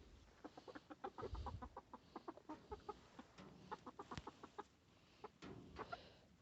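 Chickens clucking faintly, a quick run of short clucks.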